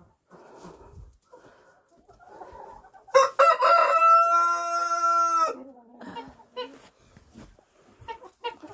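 A rooster crows once: a single long cock-a-doodle-doo of about two and a half seconds, held on a steady pitch and dropping lower at the end. Fainter scuffling comes before it.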